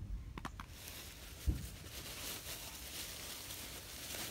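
Dry fallen leaves rustling and crunching as two Australian Shepherd puppies run and tumble through them, with a few small clicks near the start and a dull thump about a second and a half in.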